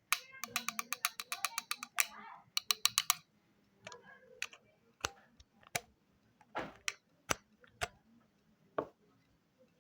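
A run of sharp clicks, about eight a second through the first three seconds, then scattered single clicks with pauses between them.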